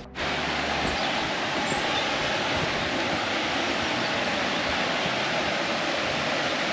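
Steady rush of fast-flowing water from a small woodland waterfall and its stream, starting suddenly just after the beginning.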